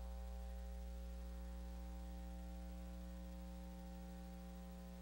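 Steady electrical mains hum with a faint hiss, slowly fading.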